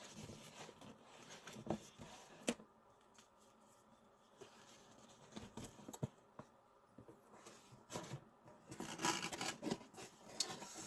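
Scattered small clicks and rustling, handling noise close to the microphone, thickening into a busier run of rustles and clicks near the end.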